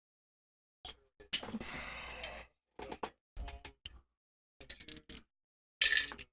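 A KEIL five-pin door lock and lock-picking tools being handled, with short metallic clicks and scrapes. There is a longer scraping rattle a little over a second in, and the loudest clatter near the end.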